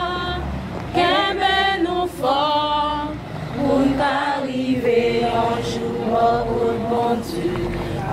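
Church choir singing a hymn, several voices together on held notes with vibrato.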